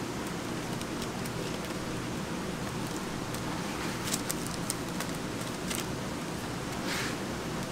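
A flat plastic scraper spreading thick sponge-cake batter over parchment paper in a sheet pan: soft scraping and paper rustling, with a few sharper scrapes about four, six and seven seconds in, over a steady low hum.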